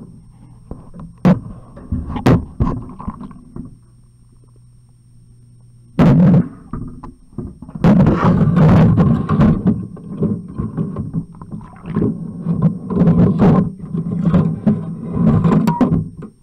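Muffled water sloshing and knocks as a waterproof camera is swished around underwater in a sink of soapy dishwater, bumping among dishes. A few sharp knocks come first, then it goes quieter for a couple of seconds, and from about six seconds in the sloshing and bumping is loud and continuous.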